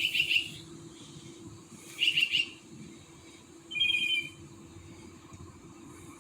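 A bird singing in short phrases about every two seconds: two quick trilled phrases, then a clear whistled phrase about four seconds in. A faint steady low hum lies underneath.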